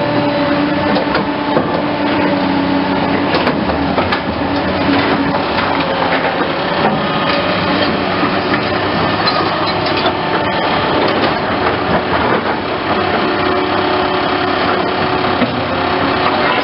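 Caterpillar hydraulic excavator working: its diesel engine runs steadily with the pitch shifting slightly, along with scattered knocks and clanks.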